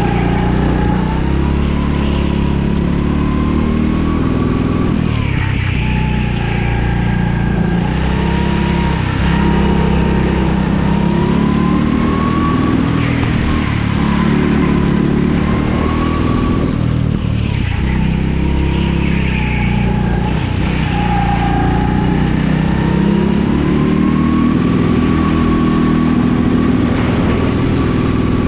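Go-kart engine heard from on board, pulling through a run of laps. The revs repeatedly rise on the straights and drop back for the corners.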